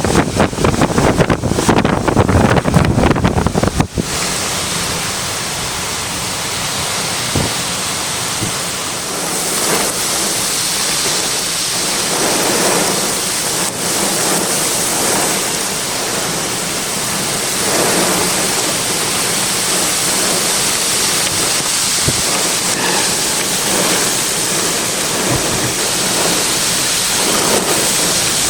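Wind from a severe thunderstorm buffeting the microphone heavily, stopping abruptly about four seconds in. After that comes a steady hiss of heavy rain and gusty wind, swelling now and then.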